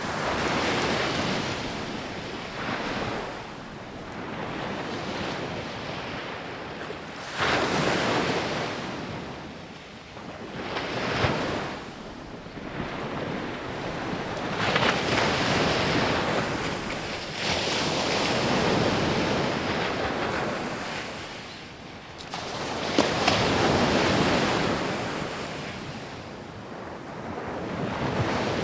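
Sea waves breaking on a beach one after another, each surge of surf swelling and then fading as it washes in, with a few sharper crashes along the way.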